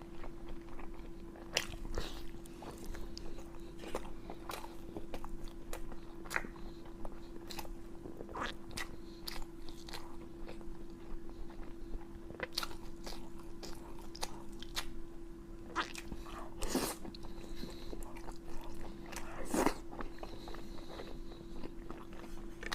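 A person biting and chewing crunchy pig's head meat close to the microphone: irregular crisp crunches, with a couple of louder bites near the end, over a steady low hum.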